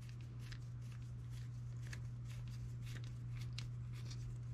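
Faint small clicks and scrapes of a hex driver turning a small screw into a carbon-fibre drone frame arm, with the parts being handled, over a steady low hum.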